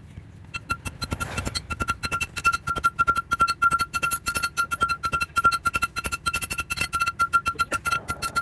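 Hand hammer striking hot steel on an anvil in quick, even blows, several a second, each blow with a high metallic ring. The hammering starts after a brief pause at the opening.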